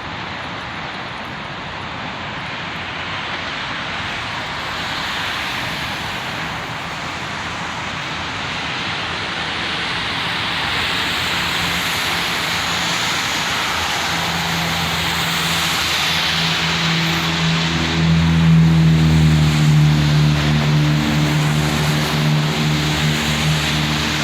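Steady rush of road traffic, with a vehicle engine's low drone building over the second half and loudest a few seconds from the end.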